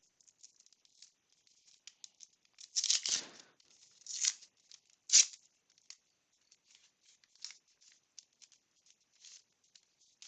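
Crinkling and tearing of a 1989 Upper Deck foil baseball card pack being opened and handled, in short crackles with a few louder ones about three, four and five seconds in.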